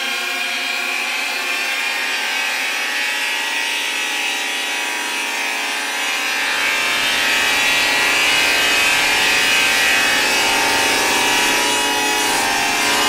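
Animoog synthesizer app on an iPad playing a noisy, rough-textured preset: a held chord of pitched tones at the start dissolves into a hiss-like texture, and about six seconds in the bass range opens up and the sound grows a little louder.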